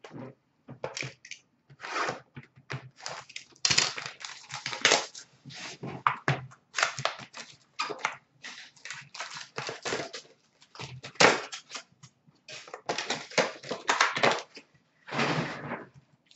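Trading-card pack wrappers being torn open and crinkled, and cards being handled: a run of irregular crackling rustles and ticks.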